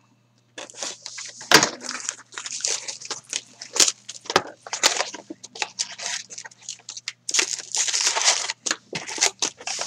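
Plastic shrink-wrap crinkling and tearing as a sealed box of hockey cards is unwrapped and its cardboard opened, the packs sliding out: a run of irregular crackles, rustles and scrapes with a few sharp clicks.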